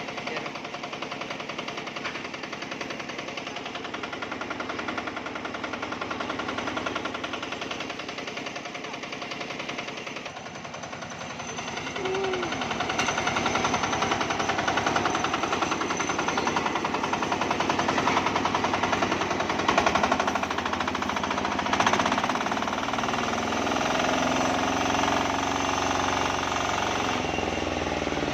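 Matsumoto single-cylinder diesel engine driving a homemade sawmill, running steadily with a rapid firing rhythm; it gets louder about twelve seconds in and stays so.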